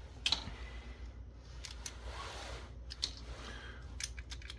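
Scattered light clicks and taps of small plastic and metal camera parts being handled and pried during disassembly, the sharpest one about a third of a second in, over a faint steady low hum.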